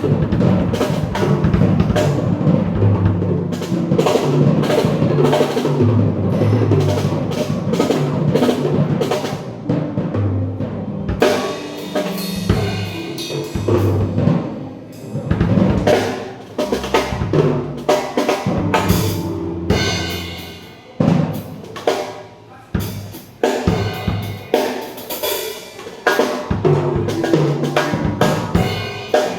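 Pearl Roadshow acoustic drum kit played continuously: bass drum, snare and toms in quick patterns and rolls, with cymbals ringing out in places.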